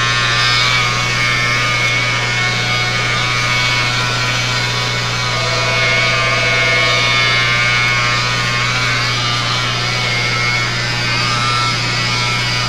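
Electric rotary polisher running steadily with a steady motor whine as its foam pad buffs a bumper cover, polishing the blended clear coat to remove the slight roughness where the clear tapers out.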